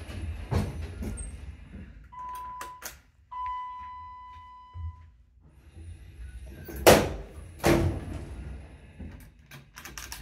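1993 Dover hydraulic elevator at a landing: two beeps at the same pitch, the second longer and fading, then two loud thumps from the car's sliding doors about seven seconds in, with lighter knocks around them.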